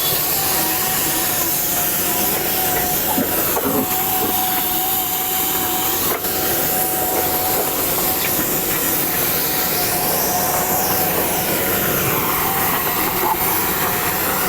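Machine running steadily: a loud, even hiss with a steady whining tone through it.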